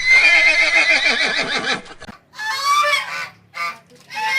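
A horse whinnies for about two seconds with a wavering, falling pitch. Then come a series of short goose honks, several in a row.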